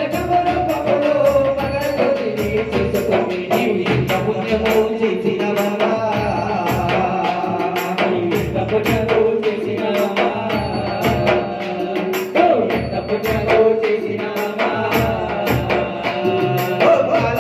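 Ayyappa bhajan, a Hindu devotional song: a male lead singer and chorus singing through microphones over a steady beat of hand drums and an electronic percussion pad struck with sticks.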